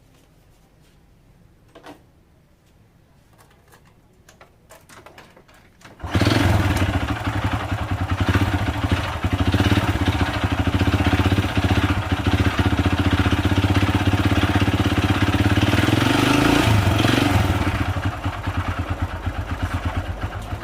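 Honda Supra Fit New's small single-cylinder four-stroke engine starting about six seconds in and then running with a rough, harsh sound, like stones rattling inside it; its note shifts briefly near the end. The mechanic suspects a badly worn connecting rod.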